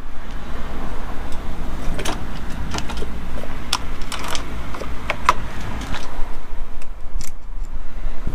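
Light metallic clicks and rattles from handling the clutch cable and lever parts by hand: a dozen or so irregular taps, with a steady low rumble underneath.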